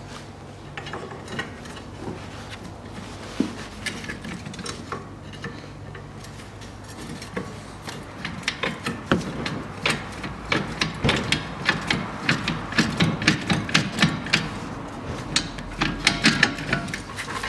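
Pry bar levering a steering knuckle off the lower ball-joint pin, with a screwdriver wedged in the knuckle's clamp slot: metal clicks and knocks, sparse at first, then coming fast and louder from about halfway through.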